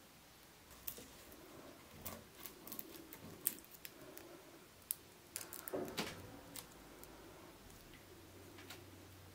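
Fingers picking and scraping at the worn, grimy surface of an old wooden plane body. It comes as a scattered run of small clicks and scratches, busiest about six seconds in.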